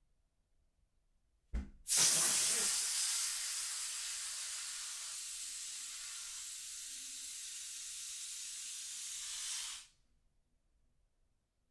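Air hissing out of the neck of a balloon as it deflates. The hiss starts loud just after a brief thump, eases slightly and holds steady for about eight seconds, then cuts off as the balloon empties.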